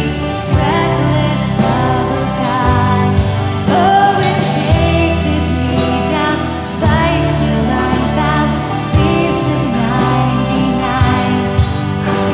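Live worship band: a woman sings the lead melody into a handheld microphone over drums and a steady band accompaniment.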